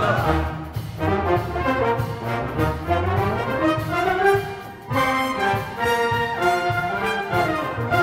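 Youth orchestra playing live. About five seconds in, the sound drops off briefly, then the full ensemble comes back in loudly.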